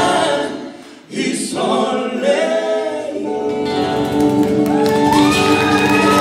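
Two male singers performing live in vocal harmony over acoustic guitar, a short sung phrase giving way after a brief pause to long held notes that step upward in pitch.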